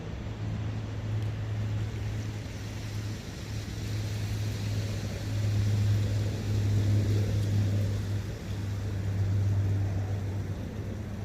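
Forest ambience of wind with a brook: a steady rushing with a low rumble that swells and eases over a few seconds, loudest about halfway through.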